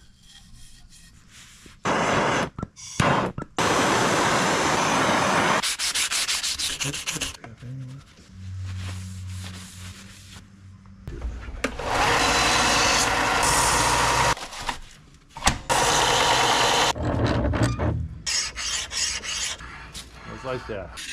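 Hand abrading of an old hatchet: steel wool scrubbed along the wooden handle to strip its lacquer and paint, and abrasives worked over the steel head. It comes in several separate bouts of scratchy rubbing, with quick back-and-forth strokes near the end.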